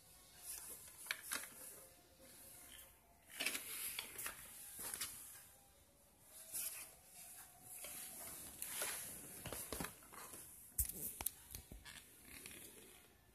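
Handling noise from a plastic Tamiya Mini 4WD Speed Checker being turned over in the hands and set down: irregular rustling and scraping with a few sharp knocks, the sharpest near the end.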